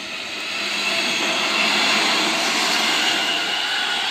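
Seibu 30000 series electric train passing close by: a rush of wheels on rail that grows louder over the first second and then holds, with a faint high whine above it.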